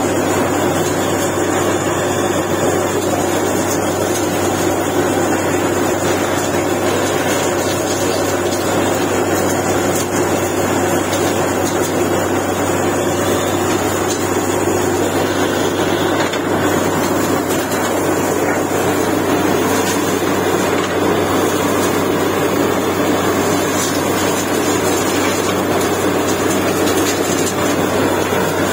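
Truck-mounted borewell drilling rig running steadily: its engine and air drilling make a loud, unbroken mechanical drone with a deep steady hum, as the bit drills into the ground.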